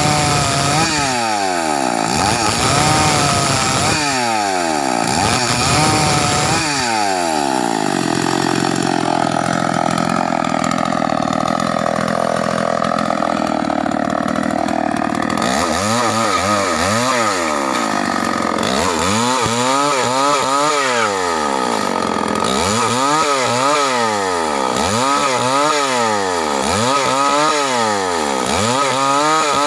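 Stihl 038 two-stroke chainsaw ripping a log lengthwise into planks, its engine revving up and down over and over as the bar works through the wood. It runs steadier for several seconds in the middle, then goes back to regular rev swells about every second and a half.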